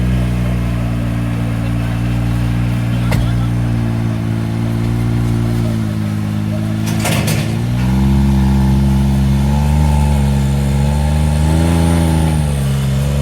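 Can-Am vehicle's engine running steadily under light throttle, with a sharp knock about three seconds in and a heavier clunk about seven seconds in; after the clunk the engine gets louder, its pitch rising and falling with the throttle as it drives up onto a pickup truck.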